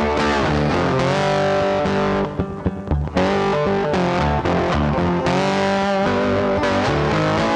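Rock music led by distorted electric guitar over bass. The band briefly drops back to a few sharp hits about two to three seconds in, then the guitar comes back in.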